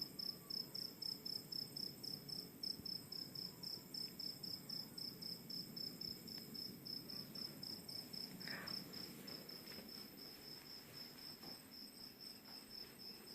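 Cricket chirping steadily at night, an even run of quick high-pitched pulses.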